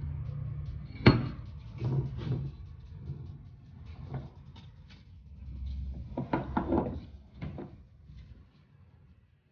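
Steel power-divider parts of a Meritor 14X truck differential being handled on a steel workbench: a sharp clank about a second in, a few lighter knocks, then a quick cluster of metal clinks around six to seven seconds, over a low steady hum.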